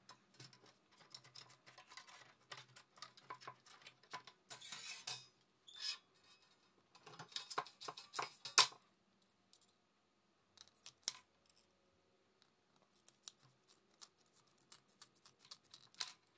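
Aviation snips cutting thin sheet metal: runs of crisp snips as the blades close through the sheet, with the loudest cut about eight and a half seconds in, a pause, then a quicker run of small snips near the end.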